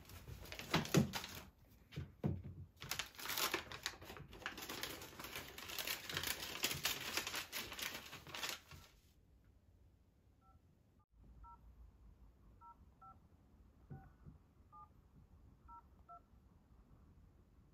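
Paper envelope and leaflets rustling and crinkling as they are pulled out and handled. Then a smartphone keypad plays touch-tone beeps, about nine short dual tones at uneven intervals, as a phone number is dialled.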